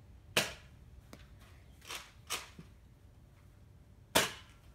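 Nerf foam-dart blasters firing: four sharp pops, the loudest about half a second in and near the end, with two softer ones close together in between.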